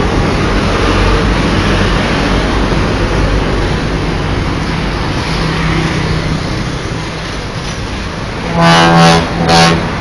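Passing road traffic: trucks going by with engine noise and tyre hiss. Near the end a bus horn sounds two loud blasts, the first about half a second long and the second shorter, each a single pitched tone.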